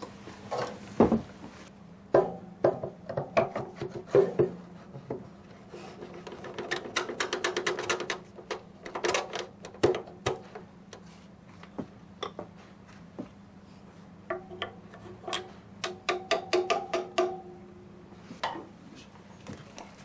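Wooden knocks, clatters and quick rattling runs as parts of a gilded wooden mikoshi (portable shrine) are handled and fitted together, with a faint steady hum underneath.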